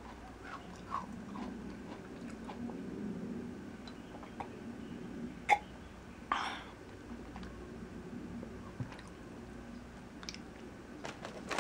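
Quiet chewing of a cookie, with scattered small mouth clicks. About six seconds in there is a sharp click and then a short sip from a mug.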